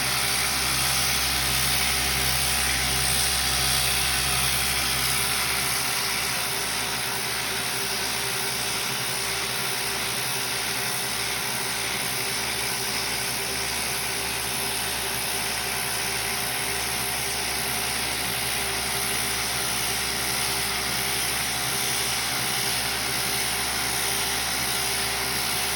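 CNC-driven random-orbit sanding head running on aluminum: a steady, even hiss with a constant mechanical hum. A deeper low rumble drops away about five seconds in.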